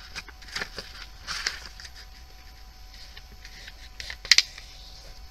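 A sheet of printer paper rustling and crackling as hands fold it and press the crease flat on a tabletop, with scattered short crinkles and a sharper crackle about four seconds in.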